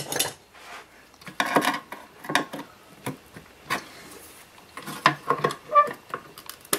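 Scattered clicks and scrapes of a flat-blade screwdriver handled and worked against an Intel 80186 processor on a circuit board, prying the chip out of its socket. The clicks come in a quicker cluster over the last couple of seconds, with a brief metallic ring near the end.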